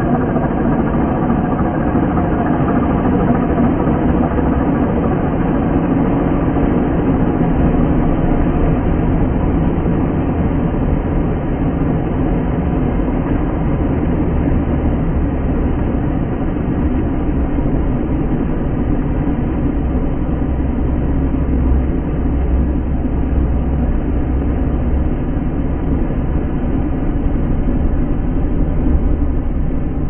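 Kubota M6040SU farm tractor's diesel engine running steadily under load as it ploughs through deep wet mud.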